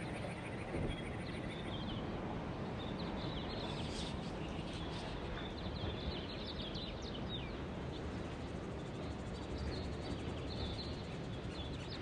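Birds chirping and trilling, with many short calls scattered over a steady background hiss.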